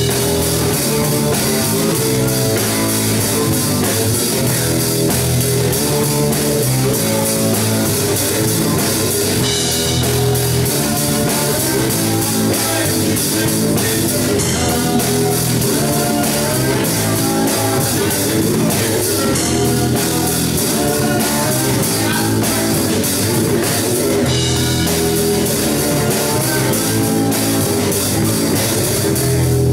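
Live rock band playing: drum kit, electric guitar and bass.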